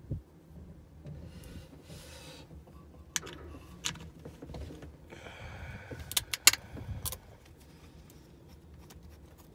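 Small carburetor fuel-pump plates and diaphragm being handled and pressed into place by hand: scattered light clicks and taps of parts seating against each other, with a quick run of sharper clicks about six seconds in.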